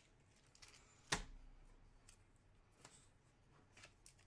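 Trading cards being handled: one sharp click about a second in, then a few faint ticks, over near-quiet room tone.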